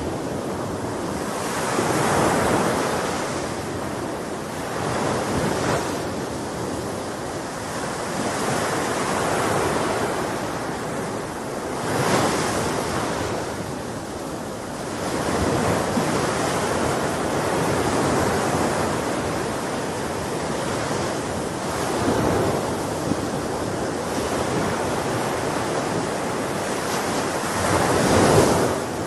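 Sea surf, waves breaking and washing ashore in a continuous rush that swells and falls back every few seconds. The biggest surges come about twelve seconds in and near the end.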